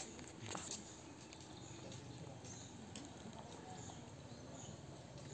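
Faint outdoor background of trees and park, with occasional distant bird chirps and a single sharp click right at the start.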